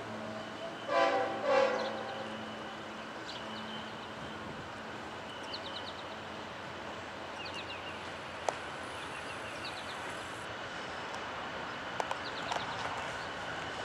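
Multi-tone train horn sounding two short blasts about a second in, over the low steady rumble of the passing trains, which then fades.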